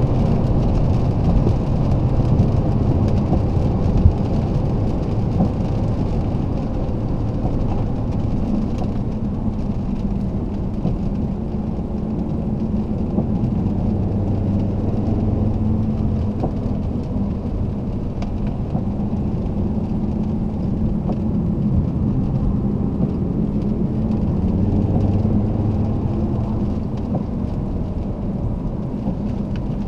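Alfa Romeo 159 2.4 JTDm's five-cylinder turbodiesel running steadily under way, a low engine drone over tyre and road rumble. The engine note swells a little twice, about halfway through and again near the end.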